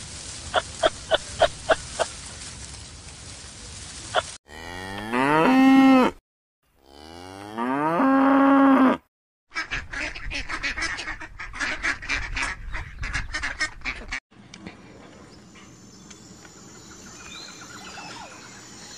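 A run of separate animal sounds: first about seven short high chirps, then two long mooing calls that rise in pitch and swell, the loudest part. Then a few seconds of ducks quacking in rapid short bursts, and a faint quiet background near the end.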